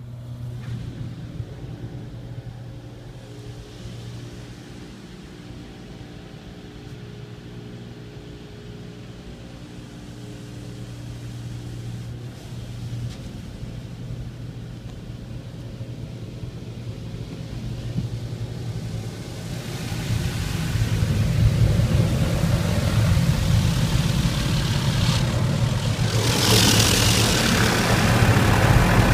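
Touchless car wash machinery heard from inside the car: a steady hum from its pumps and motors. About two-thirds through, louder rushing water spray on the car joins it, and near the end comes a sharper hiss of high-pressure jets.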